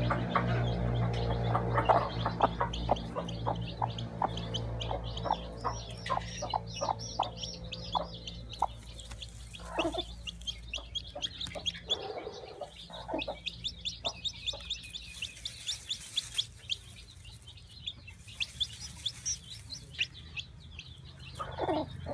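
A newly hatched chick peeping rapidly and repeatedly in high, short notes, with a hen's low clucks among them. A steady low hum runs under the first half and stops about halfway through.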